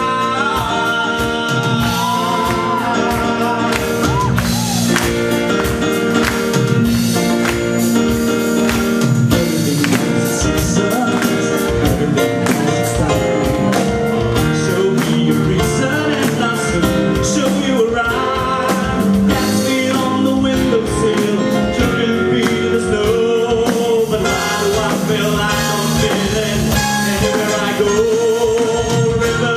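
Live band playing a song, with drum hits and a sung or lead melody line over the accompaniment.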